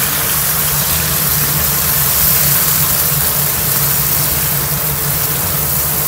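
Sliced onions, dried chillies and curry leaves sizzling in hot oil in a wok while being stirred with a wooden spatula, over a steady low machine hum.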